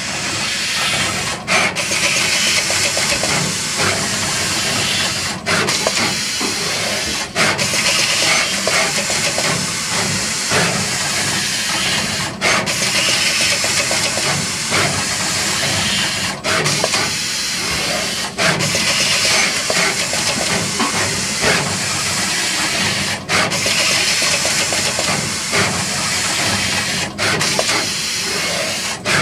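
SMT pick-and-place machine running: a loud, steady hiss of air with mechanical noise underneath, broken by brief dropouts every few seconds.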